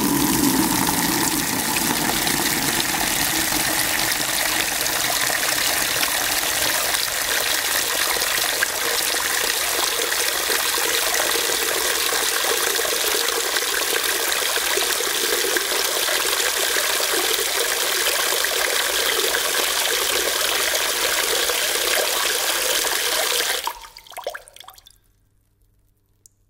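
Tap water running into a plastic bucket, a steady splashing fill that stops abruptly about 23 seconds in, followed by a few last drips.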